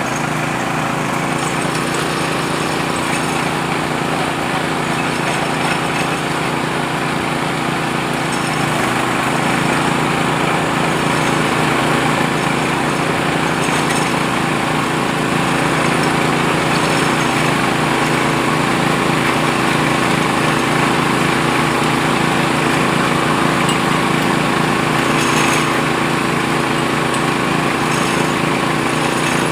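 Borehole drilling machine's motor running steadily.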